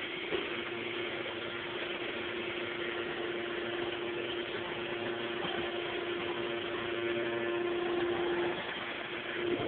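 A steady hum holding one tone over a constant hiss, fading out near the end.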